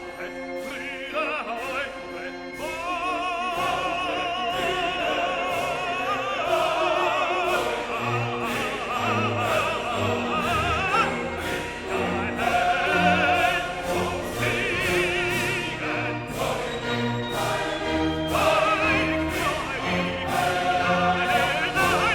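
Background music: a classical operatic piece, a singer with strong vibrato over an orchestral accompaniment.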